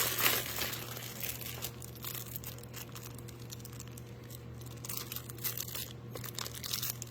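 Plastic packaging crinkling and tearing as a small 90-degree HDMI adapter is taken out of its bag. It is loudest in the first half second, then quieter scattered rustles and ticks of handling, over a faint steady hum.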